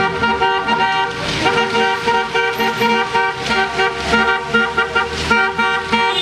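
Car horns honking in a long, pulsing run of blasts on two steady notes, the celebratory honking of a wedding motorcade driving past.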